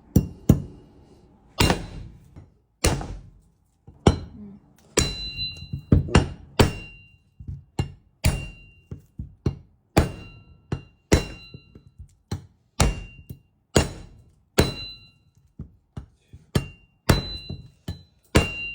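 Heavy bone-chopping cleaver chopping down again and again on something hard, about one blow a second, some in quick pairs. Many blows leave the blade ringing briefly with a high metallic tone.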